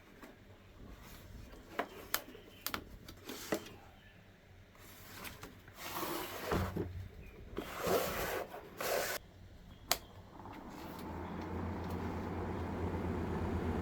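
Clicks and handling knocks, then about ten seconds in a small homemade battery-powered fan's motor starts and runs with a steady hum that grows louder.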